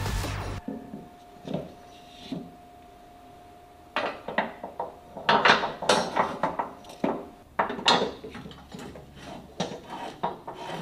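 Clinks, clanks and rubbing knocks of metal parts and hand tools being handled under a Jeep Cherokee XJ's rear suspension. There are a couple of soft knocks early on, then a quick, uneven run of sharp clatter from about four seconds in.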